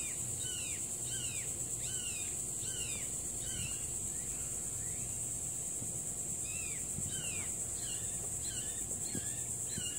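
Steady high-pitched drone of insects in the garden, with a bird repeating a string of short down-slurred whistled notes, about two to three a second, in two runs: one in the first few seconds and another from about seven seconds on.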